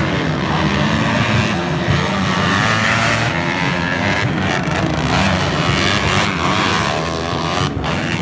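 Several motocross bikes' engines revving on a dirt track, their pitch rising and falling continuously as the riders work the throttle.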